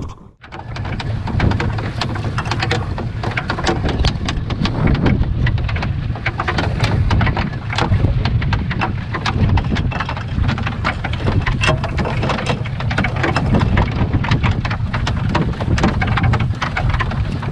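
Water splashing and dripping off a fishing net as it is hauled over the side of a small boat, a dense rain-like patter, over the low rumble of wind buffeting the microphone.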